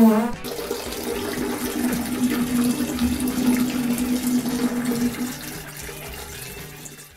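Toilet flushing: a steady rush of water with a held hum running through it for about five seconds, then fading away near the end.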